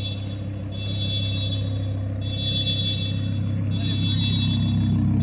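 Lamborghini Huracán's V10 idling at low speed with a steady low rumble, growing a little louder toward the end.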